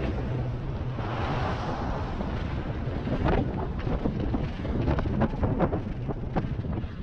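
Wind rushing over the microphone of a rider on an electric unicycle, over a low rumble, with a cluster of short crackles in the middle.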